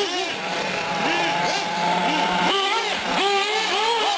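Several small nitro R/C car engines revving up and down as the cars lap the track. Quick rising and falling sweeps in pitch overlap one another, over a steadier drone.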